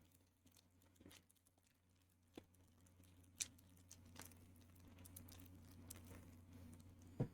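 Near silence with faint, scattered clicks and crinkles of a foil booster pack and trading cards being handled, over a steady low hum; one sharper click near the end.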